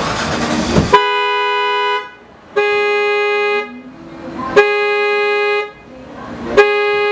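Car alarm that has been set off by accident, sounding the car's horn in steady blasts. Each blast lasts about a second and they come about every two seconds: four in all, starting about a second in.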